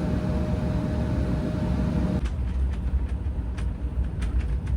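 Low steady rumble of a vehicle in motion, with a faint steady hum for the first two seconds. After an abrupt change about two seconds in, a few light ticks sit over the rumble.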